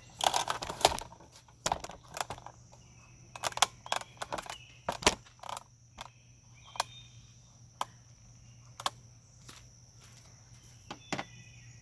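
Irregular metal clicks and clinks of hand tools and small parts as fasteners and pieces are taken off an engine's top end, several close together at first, then single clicks every second or so. A faint steady high tone and a low hum run underneath.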